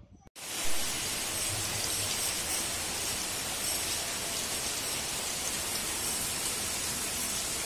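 Steady rain falling as an even hiss, starting abruptly just after the start, while rainwater runs from a collection tube into a plastic drinking-water jug.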